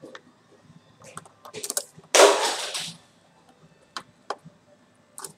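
Sharp plastic clicks and snaps as the top-edge latches of an Acer Aspire 4253 laptop keyboard are pried with a small flat-head screwdriver. About two seconds in comes one louder, longer crackle lasting under a second.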